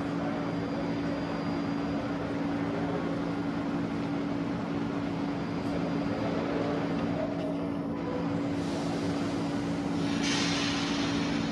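R42 subway cars on a garbage train rolling slowly along elevated track: a steady rumble of wheels on rail with a constant low hum. A hiss rises about ten seconds in.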